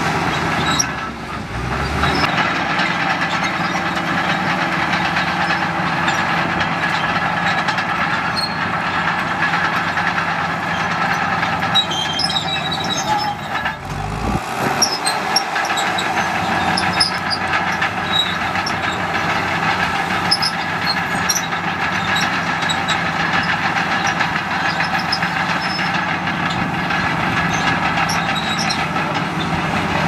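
Komatsu D65PX crawler bulldozer's diesel engine running steadily under load while it pushes stumps and brush, with scattered clanks and clicks over it. The sound dips briefly about a second in and again near the middle.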